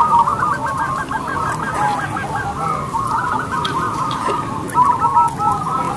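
Many caged zebra doves (perkutut) cooing at once, their short repeated coos overlapping into a continuous chorus.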